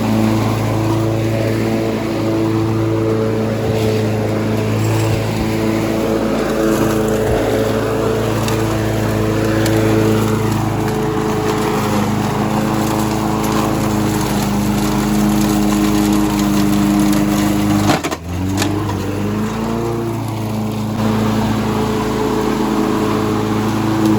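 Gas lawn mower engine running steadily under load. Near the end it dips suddenly and sags in pitch, then picks back up to speed.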